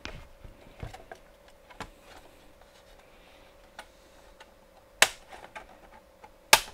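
Sharp plastic clicks and snaps from a ThinkPad W540 laptop's palm rest as its plastic clips are popped loose and the panel is handled. The clicks are scattered, with the two loudest snaps about five seconds in and near the end.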